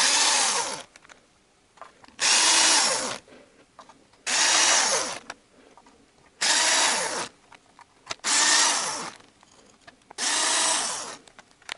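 Cordless drill-driver running in six short bursts, each just under a second long and about two seconds apart, as it spins out the 10 mm oil pan bolts one by one.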